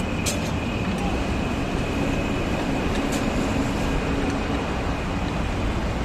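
Steady vehicle noise, an even rumble, with two short sharp clicks, one just after the start and one about three seconds in.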